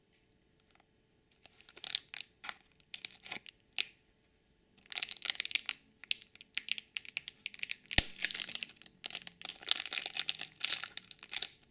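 A small Shopkins blind packet being torn open by hand: a few scattered crackles, then a long stretch of dense plastic crinkling with one sharp snap partway through as the packet gives.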